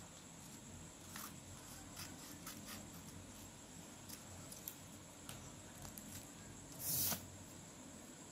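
Scissors snipping through folded paper: a few faint, scattered snips, then one louder, longer rustle of paper about seven seconds in.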